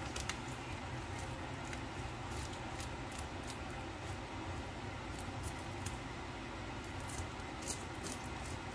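A spoon scraping the scales off a whole fish on a plastic cutting board: short, irregular, high-pitched scratchy clicks as the scales flick off, over a steady low hum.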